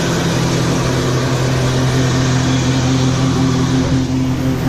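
Engine of a large farm vehicle running steadily at an even speed, a constant low drone.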